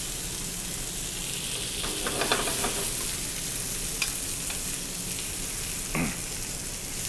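Chicken breasts frying in hot oil in a sauté pan, a steady sizzle as the second side browns, with a few light clicks about two seconds in.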